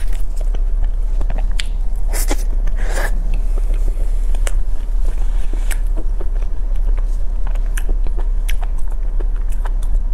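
Close-miked eating of a flaky egg tart: wet chewing and mouth clicks, with two short crackly rustles about two and three seconds in. A steady low hum runs underneath.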